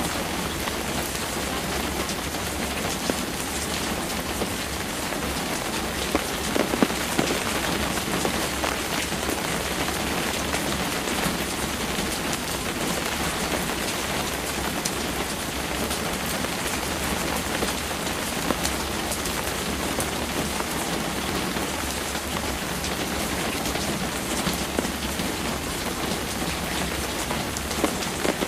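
Steady rain falling on a surface: an even hiss dotted with sharp taps of individual drops, a few of them louder about six to seven seconds in.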